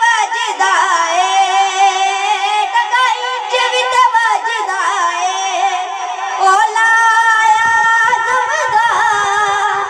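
A boy's high voice singing a devotional naat into a microphone, unaccompanied, with long held, wavering melismatic notes.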